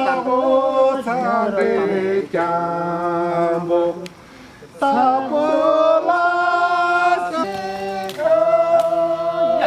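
Voices singing without instruments in long held notes, with a short break about four seconds in.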